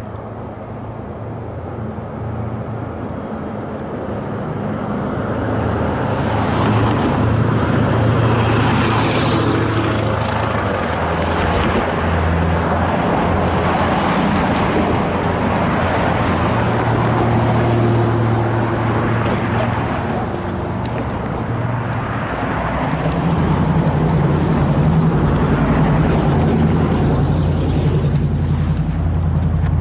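Road vehicles going by, engine hum and tyre noise swelling and easing off twice.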